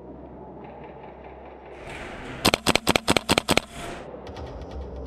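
A rapid burst of incoming airsoft fire: about nine sharp, loud cracks at roughly eight a second as tracer BBs strike close around the shooter's position.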